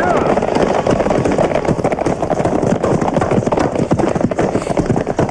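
Horses galloping: a dense, continuous clatter of many hoofbeats.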